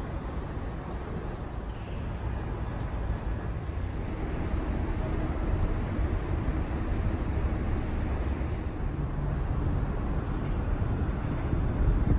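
Steady low rumble of a moving vehicle, growing a little louder as it goes.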